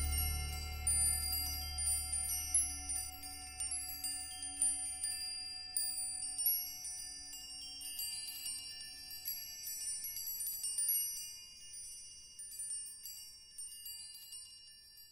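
Small high-pitched chimes tinkling at irregular moments, each note ringing briefly, over a low drone that fades out within the first few seconds. The chiming thins out and grows fainter toward the end.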